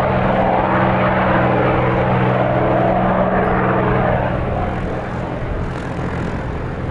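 Piston engine of a WWII propeller fighter running steadily with a deep, even drone, easing slightly after about four and a half seconds.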